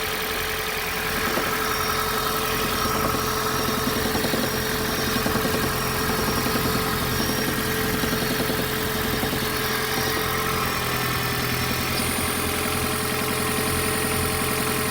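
Toyota Prius engine running with a fast rattling noise from around the engine, which the owner reports as an abnormal noise.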